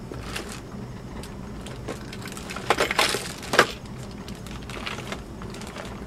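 Small hard objects clattering as someone rummages through tools in search of tweezers: a few sharp clicks and knocks between about two and a half and three and a half seconds in, over a steady low hum.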